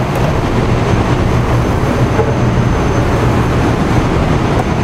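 Steady rumbling noise with a low hum, the constant air-handling background of a cleanroom.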